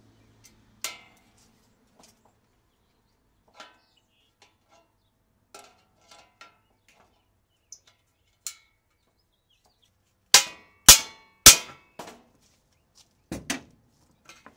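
Metal clanking and knocking as an air-conditioner condenser's fan blade and motor assembly is worked loose from the unit: scattered light clicks, then three loud sharp clangs in quick succession about ten seconds in, and two more near the end.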